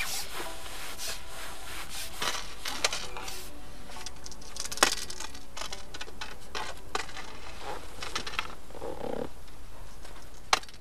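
Water splashing and dripping, with short clicks and knocks, as a landing net holding a fish is lifted out of the pool. Music plays faintly underneath.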